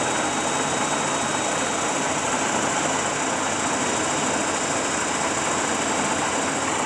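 Monarch 18 x 54 Series 62 heavy-duty engine lathe running under power: its 10 HP motor and geared Preselect headstock make a steady, even running sound with a faint high tone over it, which the seller says sounds good.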